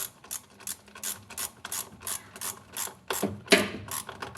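A ratchet clicking steadily, about four clicks a second, as the washing machine motor's mounting bolt is driven in and tightened.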